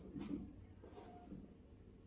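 Quiet room tone with a few faint soft rustles early on and a faint click about a second in.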